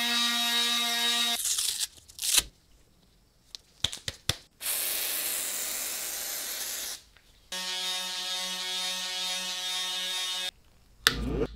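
Small cordless power sander buzzing as its sandpaper pad works the pitted steel arm of a nutcracker. It runs in two bursts of steady buzz, with short knocks and a stretch of hiss between them, and a couple of knocks near the end.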